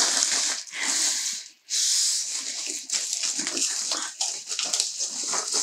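Thin plastic protective wrap rustling and crinkling as it is pulled off a cutting machine, with a brief pause about a second and a half in.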